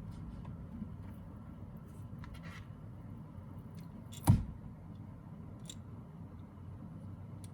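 Small hard objects being handled: a sharp click about four seconds in and a few faint ticks and scratches, over a steady low hum.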